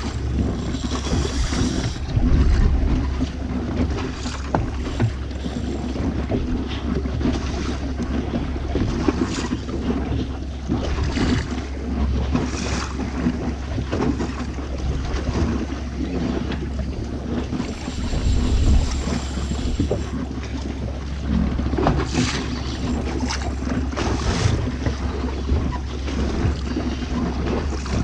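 Boat motor running steadily, with wind buffeting the microphone and irregular splashes and knocks of water against the hull.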